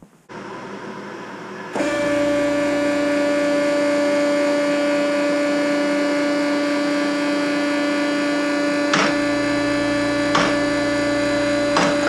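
Two-post vehicle lift's electric hydraulic pump motor running with a steady hum as it raises the lift. It starts about two seconds in, and three sharp clicks come in the last few seconds.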